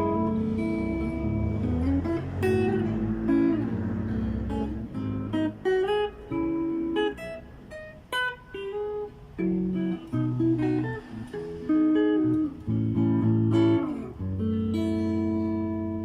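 Cistyle LP guitar being played as a tone test: picked single-note melodic runs mixed with ringing chords, a full chord sustaining near the end.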